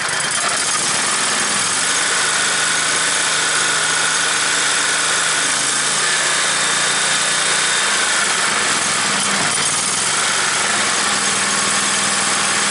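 Kohler engine of a stump grinder idling steadily with a freshly cleaned carburetor, still warming up from cold, its pitch shifting slightly a couple of times.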